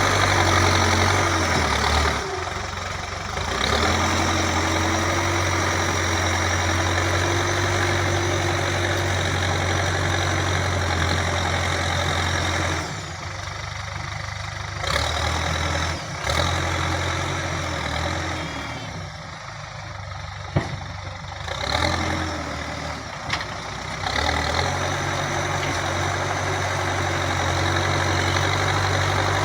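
Diesel engine of a Terex TLB 844S backhoe loader running steadily with a deep hum. It falls quieter three times for a second or several, with a sharp knock about twenty seconds in.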